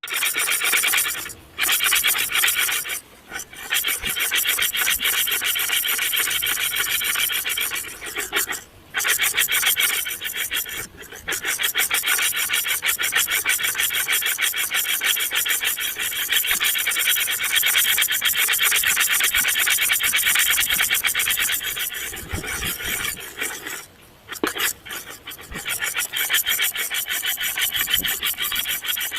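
A harsh rasping, scratching noise made of rapid fine strokes, running almost continuously with a few short breaks.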